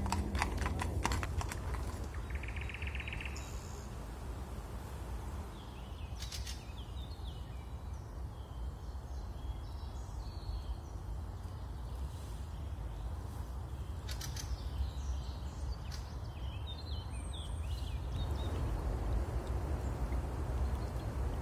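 Horses' hooves clopping at a walk on a packed path for about the first second, then a steady low rumble with a few faint bird chirps. Near the end a soft trickle of water from a shallow, partly frozen stream comes in.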